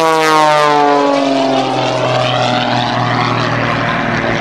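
Oracle Challenger III aerobatic biplane's piston engine and propeller at high power as it passes, the engine tone falling in pitch over the first two seconds as it goes by, then running on lower.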